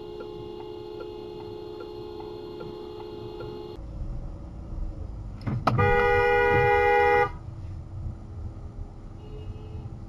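A car horn sounds in one steady blast of about a second and a half, over the low rumble of a car rolling through a car park. Before that, a soft ticking about twice a second runs over a constant hum and stops abruptly about four seconds in.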